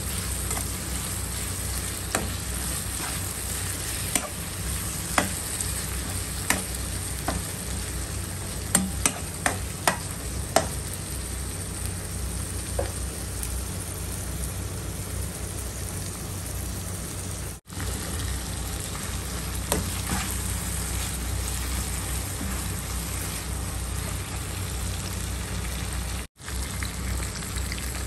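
Onions, tomatoes and garlic sizzling as they sauté in a wok, with a metal spoon clicking and scraping against the pan as it stirs, the clicks most frequent in the first ten seconds or so. The sizzle drops out briefly twice.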